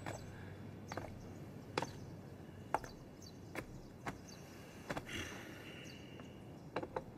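Faint sharp knocks, roughly one a second, with a quick run of three near the end and a short hiss about five seconds in.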